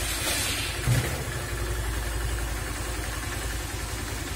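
Nexus Vector scooter's 150 cc four-stroke 157QMG engine idling steadily just after starting, with a brief surge about a second in. It runs evenly now that the half-unscrewed spark plug that made it stall has been screwed in.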